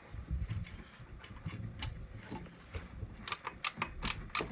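Ratchet wrench clicking while an alternator mounting bolt is turned in a couple of turns: scattered sharp clicks that come quicker over the last second and a half.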